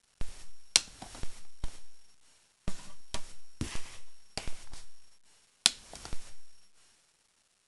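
Disc-set packaging being handled: sharp clicks and short rustles in three bursts, each dying away.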